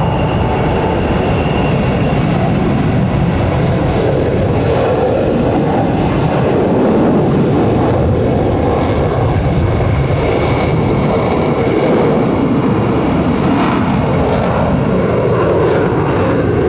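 F-22 Raptor's twin Pratt & Whitney F119 afterburning turbofans at full power with afterburner through takeoff and a steep climb-out. The jet noise is loud and steady.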